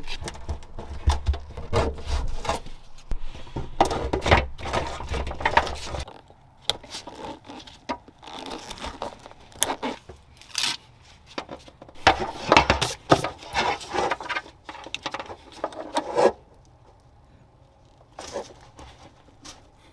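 Irregular rustling, scraping and clicking of hands working a trailer wiring harness through a rubber body grommet, with a low rumble for about the first six seconds.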